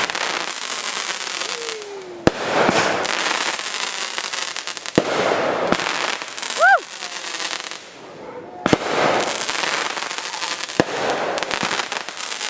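Consumer fireworks going off in a continuous show: a steady crackling with four sharp bangs, a few seconds apart.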